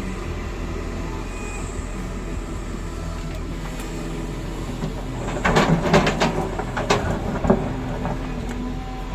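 Excavator's diesel engine running steadily, with a burst of clanks and scraping from about five to seven and a half seconds in.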